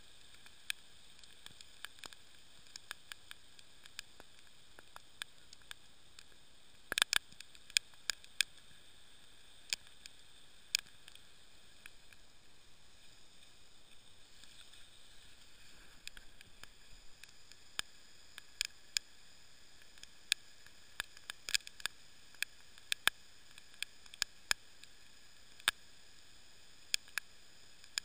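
Steady hiss of heavy rain with irregular sharp ticks of drops, a quick cluster of them about seven seconds in.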